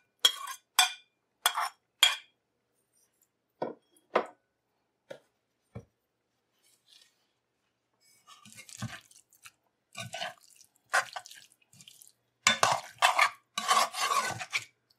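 A metal spoon tapping against a plate several times, clinking as scallions and pepper are knocked off into the pot. After a short pause, the spoon stirs and scrapes in the metal pot, busiest near the end.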